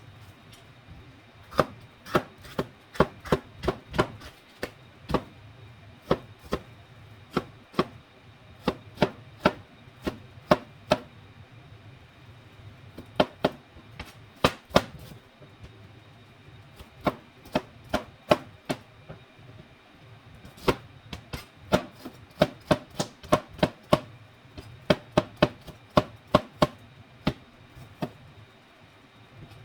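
Knife chopping on a cutting board in runs of quick, sharp strokes, about two to three a second, with short pauses between the runs.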